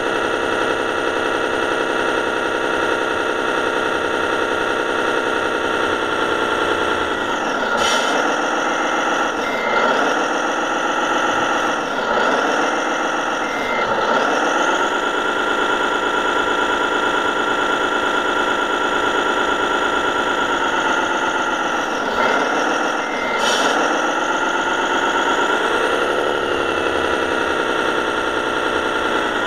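Radio-controlled model truck's engine sound, played through its sound module's speaker: a steady run, then from about seven seconds the pitch drops and climbs back four times in quick succession, and twice more a little after twenty seconds.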